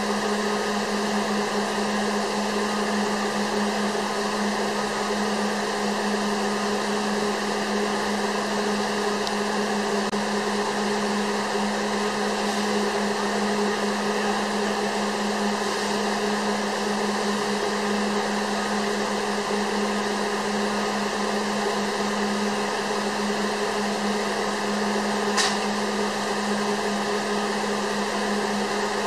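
Steady machine-like hum and hiss with a constant low tone, unchanging throughout, and a single short click near the end.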